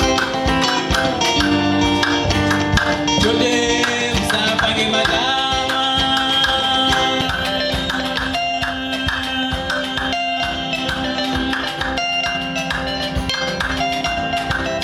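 Band music in an instrumental passage: guitar lines over a steady drum beat.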